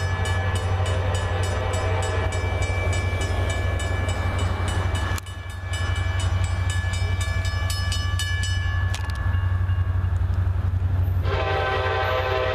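Nathan K5LA five-chime locomotive horn sounding as the train approaches, over the steady low rumble of its EMD two-stroke diesel engines, with a grade-crossing bell ringing about three times a second. The horn chord comes in loud again near the end.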